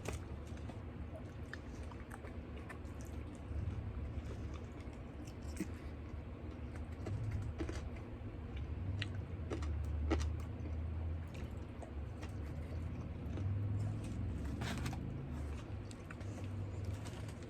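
Close-miked chewing and biting of food, with scattered small wet mouth clicks over a steady low rumble.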